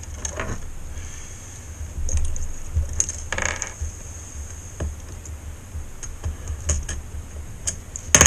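Irregular light clicks and taps of small tools and plastic filament being handled, with a short scraping rustle about three seconds in and a sharp click near the end, over a low steady hum.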